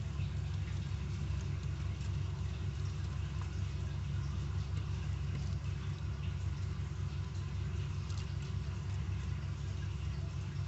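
A steady low machine hum, even in level throughout, with a few faint light ticks and rustles over it.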